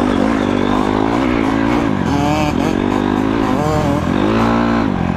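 Dirt bike engine running under way on a trail, its pitch rising and falling several times as the throttle is opened and closed.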